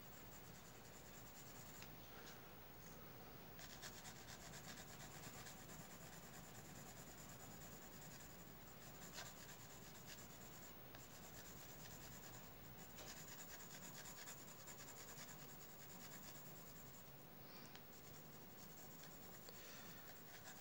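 Graphite pencil shading on drawing paper: faint, scratchy strokes that come in spells, stopping and starting.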